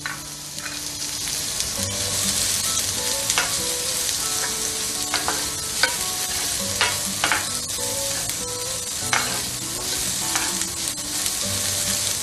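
Chopped onions sizzling in melted butter in a cast-iron skillet, stirred with a wooden spatula that knocks and scrapes against the pan every second or so.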